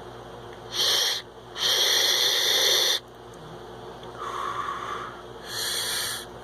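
Draws on a sub-ohm vape tank with its airflow open, set at 50 watts: a short pull, then a longer hissing pull of about a second and a half. Two softer breaths follow, the first with a faint whistle.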